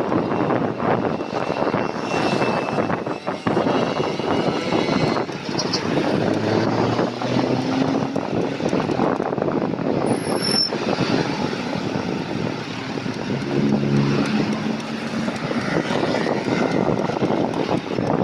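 Steady rush of wind on the microphone and road noise from riding a bicycle along a city street, with motor traffic passing. A nearby engine's hum comes through briefly about three-quarters of the way in.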